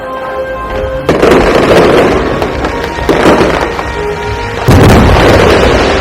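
Aerial fireworks shells bursting, with a heavy boom about a second in and another near the end, each followed by dense crackling, over background music with held tones.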